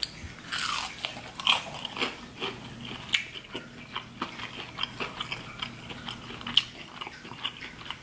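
Close-up chewing of a crunchy fried shrimp: irregular crisp crunches of the breading, a few louder than the rest.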